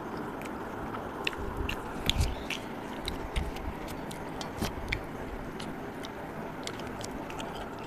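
A person eating rice, dal and fish with the fingers: chewing and mouth smacks, with a scatter of short sharp clicks over the first five seconds or so, then fewer.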